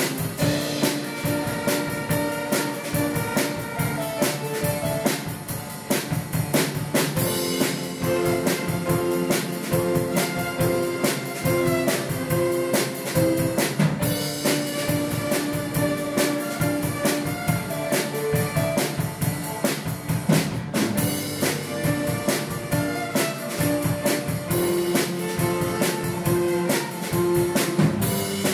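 Youth string orchestra, violins and cello with keyboard, playing an arrangement of a rock song over a steady drum beat.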